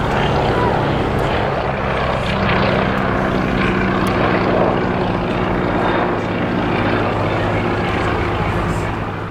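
Steady drone of a formation of Royal Navy aircraft, including a Westland Wasp helicopter, flying past: engine and rotor tones with their pitch shifting partway through as the aircraft pass.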